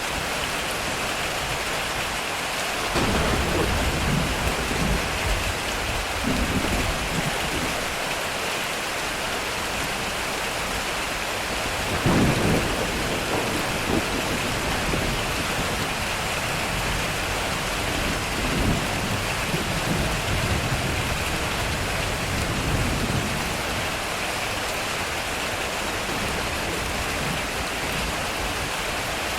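Heavy rain drumming steadily on a metal roof, with thunder rolling in about three seconds in and a sharper, louder thunderclap about twelve seconds in, its rumble trailing off over the next ten seconds.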